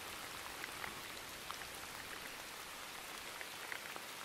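Steady rain: an even hiss with scattered small drip ticks.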